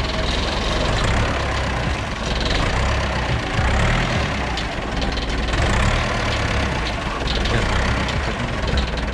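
Heavy machine's engine running steadily, its level rising and falling slightly.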